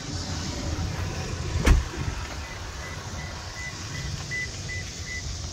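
Pickup truck door (Toyota Tacoma TRD Pro) slammed shut once, a single heavy thump about a second and a half in, over a steady low rumble. A faint, high beep then repeats evenly, about twice a second, through the second half.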